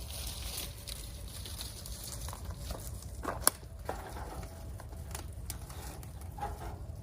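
Wood campfire crackling, with scattered small pops and one sharp snap about three and a half seconds in.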